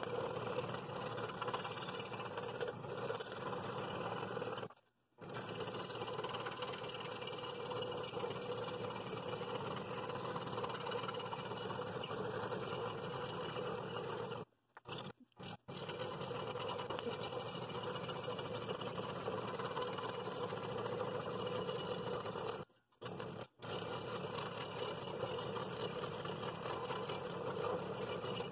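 Scroll saw running and cutting through 3/8 inch poplar, the blade steadily sawing out the bevelled rings of a bowl pattern. The sound cuts out briefly three times.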